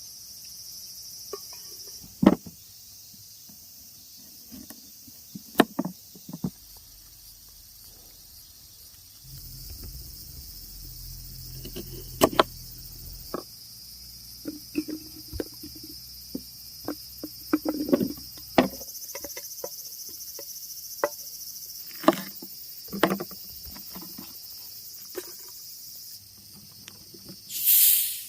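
Autumn crickets and other insects chirping steadily, with scattered sharp clicks and knocks of things being handled. Near the end there is a short, loud hiss.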